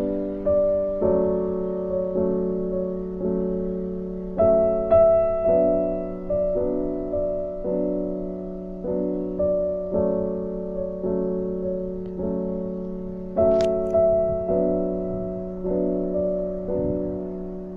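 Gentle background piano music: notes and chords struck about once a second, each fading away before the next.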